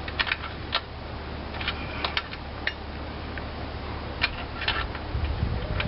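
Light metallic clicks and clinks at irregular intervals as a hand wrench works a nut loose on an antique engine, over a steady low hum.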